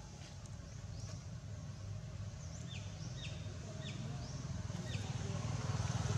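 Low engine rumble of a passing motor vehicle, growing steadily louder as it approaches. Several short high chirps come in the middle.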